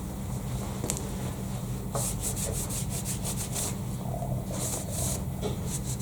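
Quick back-and-forth rubbing strokes on the milling vice's machined steel surfaces, about five a second: a run lasting nearly two seconds, then shorter runs near the end.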